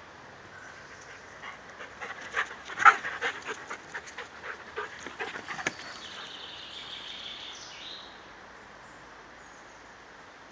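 Blonde bouvier making a quick run of short excited yips and breaths for about four seconds, loudest about three seconds in.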